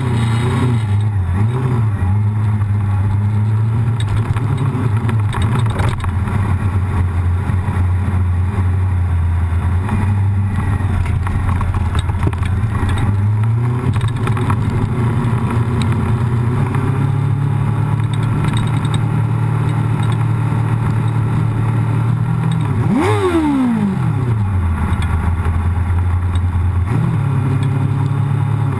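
Race motorcycle engine running at low revs while rolling slowly, its note shifting a little with the throttle. About two-thirds of the way through, the pitch jumps up briefly and falls straight away.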